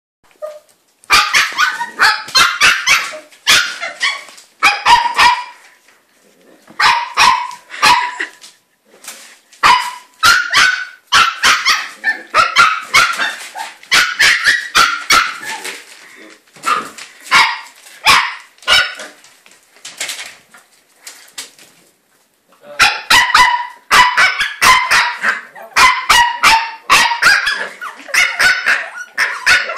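A terrier puppy barking in rapid runs of short, high yaps, broken by pauses of a second or two.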